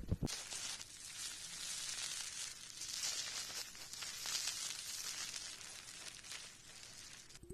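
The last moment of a stomach growl, then about seven seconds of a steady, crackly crinkling noise close to the microphone, cutting off just before the end.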